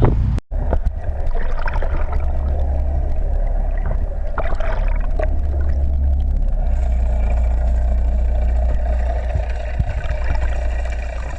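Boat engine running steadily: a low rumble with a steady hum above it. The sound cuts out briefly about half a second in.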